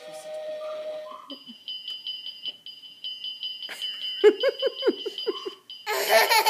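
Electronic sounds from a toddler's ride-on toy's steering-wheel sound panel: a few held notes of a tune, then a high-pitched electronic beeping pulsing several times a second, like an alarm. A small child's voice joins about four seconds in, and a loud squeal of laughter comes near the end.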